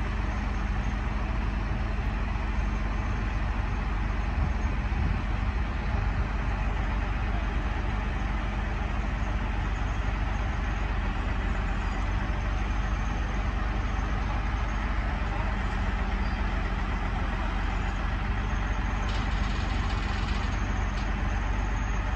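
Heavy diesel engine running steadily, a constant low rumble with a faint steady hum.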